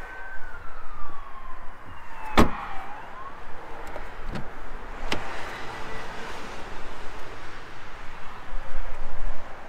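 A Renault Megane E-Tech's rear door shuts with a solid thud about two seconds in. Then the front door's flush handle and latch click twice as the front door is opened. A siren wails, rising and falling, until about the time of the thud.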